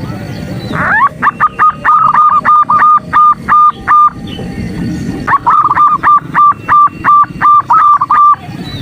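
Female zebra dove (perkutut) cooing: two long runs of short, quick, evenly pitched notes, about four a second, each run opening with a rising note, with a pause of about a second between them. It is a lure call meant to stir male zebra doves into calling.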